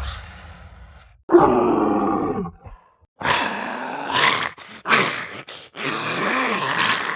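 Monster creature groans from a horror sound-effects pack: a deep groan about a second in whose pitch falls away, then three more drawn-out, voice-like groans with short breaks between.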